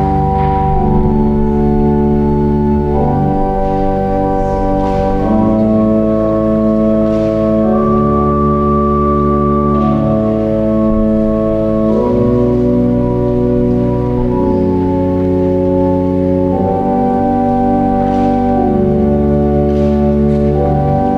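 Organ playing slow, sustained chords that change every second or two, as a wedding processional.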